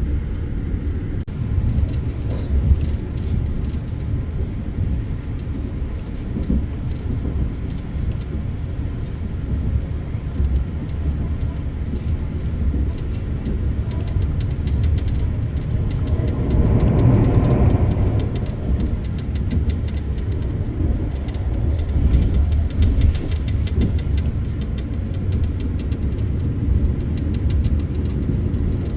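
Argo Bromo Anggrek passenger train running at speed, heard from on board: a steady low rumble of wheels on rails with light clicking, swelling louder for a couple of seconds around the middle.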